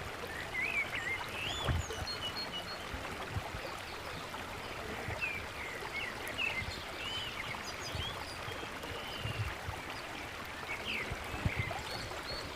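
Steady rush of running water, with small birds chirping again and again over it and a few soft low thumps.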